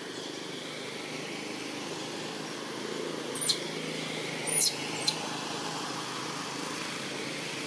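Steady low outdoor rumble, like distant traffic, with three short high chirps about halfway through.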